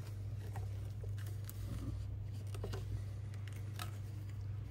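Leftover adhesive strip being peeled off a phone's glass back cover, giving scattered faint crackles and ticks. Under it runs a steady low hum.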